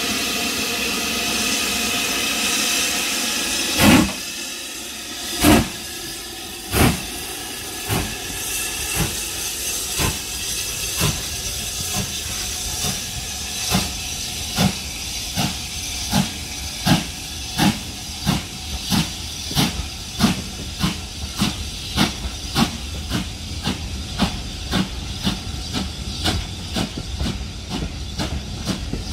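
BR Standard Class 5 steam locomotive No. 73082 starting a train: a steady hiss of steam, then exhaust chuffs starting about four seconds in, the first few the loudest and widely spaced, coming faster and faster as the train picks up speed.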